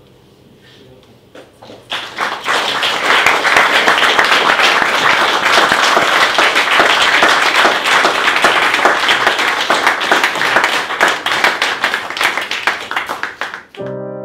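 A small crowd applauding, rising in about two seconds in after a few faint closing keyboard notes. The applause continues densely, then cuts off abruptly near the end into sustained electric piano chords.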